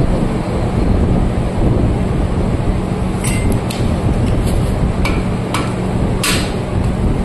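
Six or so sharp metal taps in the second half, the last the loudest, over a steady low rumble: tool strikes on metal during work on a tractor's rear axle.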